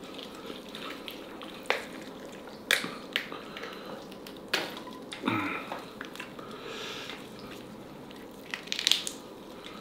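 Gloved hands tearing apart a steamed black H'Mông chicken: wet, squishy pulling of the meat with several sharp cracks as the wing and thigh joints snap.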